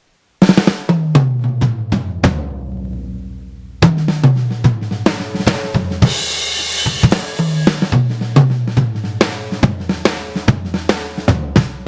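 Sampled Yamaha Oak drum kit from BFD2 at its default settings, played through a 2Box drum module: a fill of drum hits falling in pitch about half a second in that rings out, then a steady beat of kick, snare and cymbals from about four seconds in, with a cymbal wash around six seconds.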